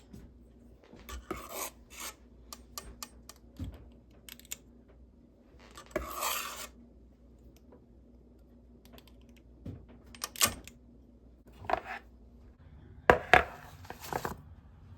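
Kitchen handling sounds: dishes and utensils clicking, knocking and scraping in scattered strokes. There is a longer scrape about six seconds in, and the loudest clanks come in a cluster near the end.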